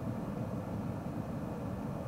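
A steady low rumble with no distinct tones.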